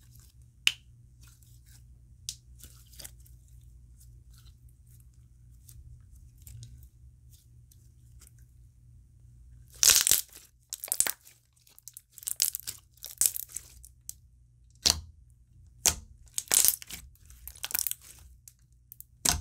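Thick clear gel slime with small pieces in it being squished and stretched by hand: scattered soft clicks and pops at first, then from about halfway louder clusters of crackling and popping.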